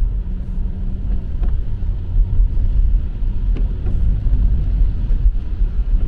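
Steady low rumble of a car driving on a wet road, heard from inside the cabin: engine and tyre noise.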